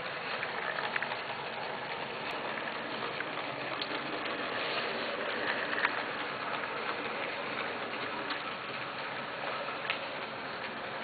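Brass model steam locomotive running along model railroad track: a steady whirring rattle of its motor, gearing and wheels on the rails, with scattered small clicks.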